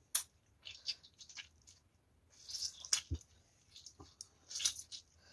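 Wet squelching and sticky clicks of a hand squeezing and kneading rice mixed with dal on a banana leaf, coming in several short bursts, the sharpest click just after the start.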